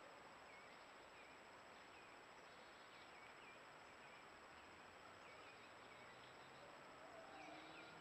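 Near silence: faint woodland ambience of insects and a few faint high chirps, over the hiss of a trail camera's microphone and a steady high-pitched whine.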